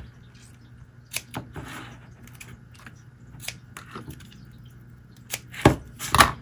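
Light scattered clicks of scissors and paper being handled, then two louder short rasps near the end as tape is pulled off the roll.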